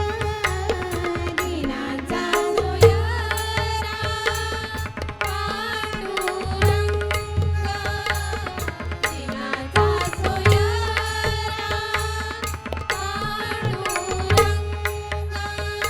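Indian devotional-style music: a melody with sliding notes over tabla and pakhawaj drumming, with deep bass drum strokes coming back every few seconds.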